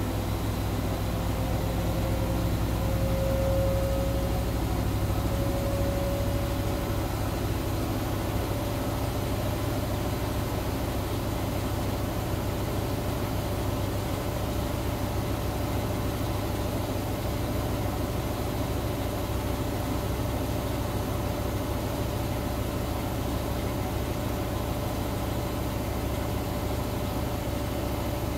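Front-loading washing machine running a wash cycle: a steady motor hum with the drum turning the water, its tone rising slightly over the first few seconds and then holding.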